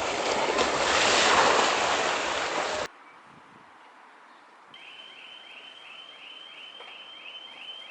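Surf breaking on the shore with wind buffeting the microphone, cut off abruptly about three seconds in. After that it is much quieter, and from about five seconds in a faint high chirping repeats about three times a second.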